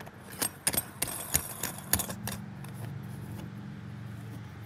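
Small metal parts clinking and rattling, a run of sharp ringing clinks over the first two seconds or so, as a shower drain fitting and its nut are handled. A low steady hum sets in about two seconds in and carries on.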